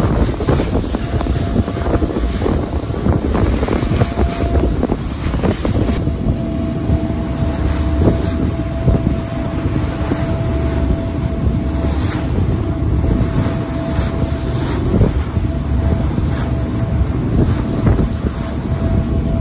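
Passenger boat under way: its engine runs with a steady low rumble and a faint steady tone, water rushes along the hull and wake, and wind buffets the microphone.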